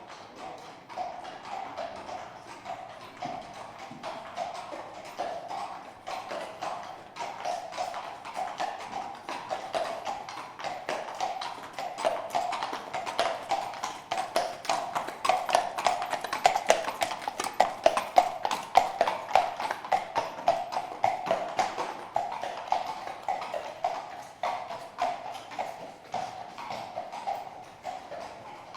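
Horse's shod hooves clip-clopping at a walk on hard pavement, the hoofbeats growing louder toward the middle and then fading as the horse passes.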